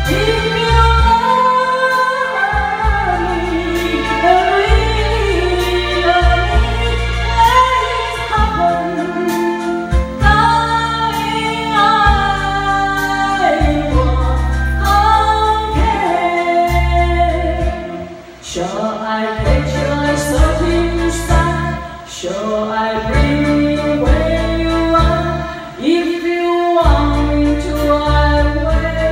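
A woman singing into a handheld microphone over a backing track with a steady bass line.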